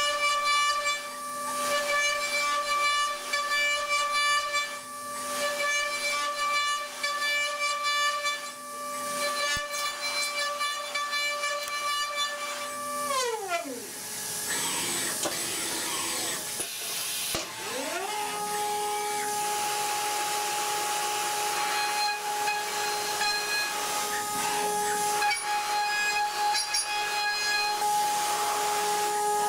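Datron high-speed CNC milling spindle whining steadily over a hiss of cutting as it mills an aluminium block. About 13 s in the whine falls away as the spindle slows. Around 17 s it rises again and settles at a different steady pitch.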